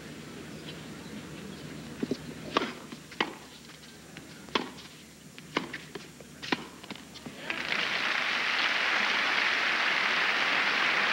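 A tennis point on a hard court: about six sharp pops of the ball on racket strings and court, spaced roughly a second apart, then crowd applause breaking out about seven and a half seconds in and carrying on steadily.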